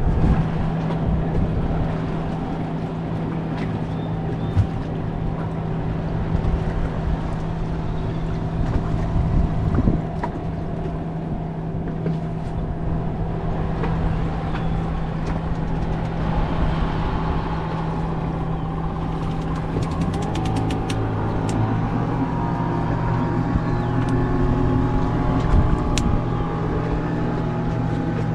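Boat motors running: a steady engine note throughout, joined from about halfway in by a second motor whose note wavers and shifts.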